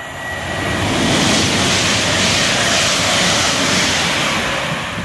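Grand Central Class 180 diesel multiple unit running through the station at speed without stopping: a loud rush of wheel, rail and air noise with a low rumble, building in the first second, holding steady, then falling away near the end.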